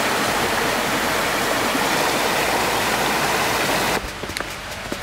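Steady rush of a small stream cascading over granite rocks, cutting off suddenly about four seconds in; after it, a quieter stretch with a few faint taps.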